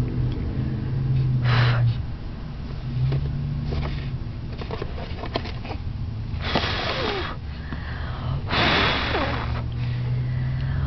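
Baby making breathy blowing noises: three puffs of air about a second long, the last the longest, over the steady low hum of the car's engine.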